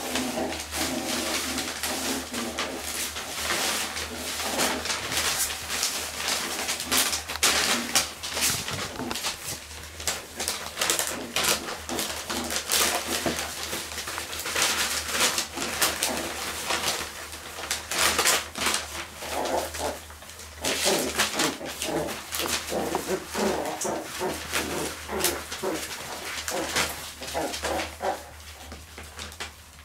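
Cotton de Tulear puppies vocalising in short bouts as they wrestle in play, over repeated crackling and rustling of newspaper being pawed and tugged.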